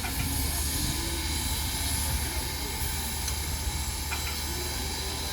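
Steady low rumble with a constant hiss over it, unchanged throughout, with faint voices underneath.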